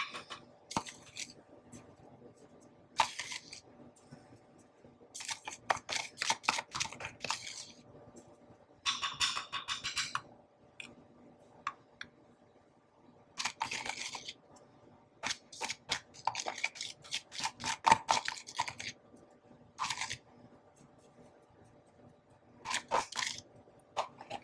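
Metal spoon scooping and scraping wet iodized salt out of a plastic tub and tapping it onto a stone plate: short bursts of gritty scraping and quick clicks, with pauses between them.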